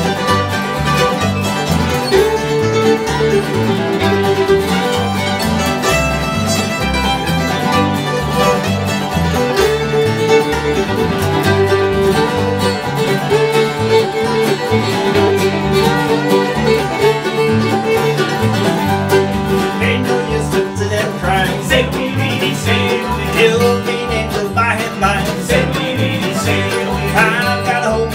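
Acoustic bluegrass band playing: strummed acoustic guitars, mandolin and banjo over a steady plucked upright bass.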